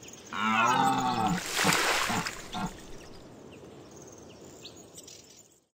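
Logo sound effect: a deer stag's call rising and falling for about a second, then a splash of water, fading into a quiet bed of forest ambience with a few faint bird chirps that cuts off just before the end.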